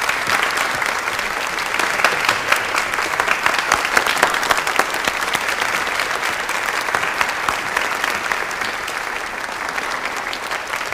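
A hall audience applauding steadily, loudest a couple of seconds in and easing off slightly toward the end.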